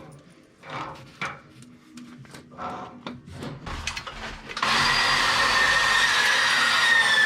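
A power tool starts suddenly about halfway through and runs loud and steady, with a high whine in it, after a few seconds of light handling knocks.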